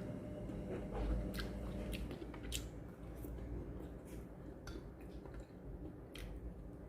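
A person chewing food close to the microphone, with scattered short wet mouth clicks and smacks.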